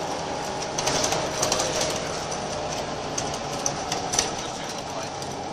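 Cabin noise inside a Scania L94UB Wright Solar single-deck bus: the diesel engine's steady drone with scattered light rattles and clicks from the bodywork and fittings.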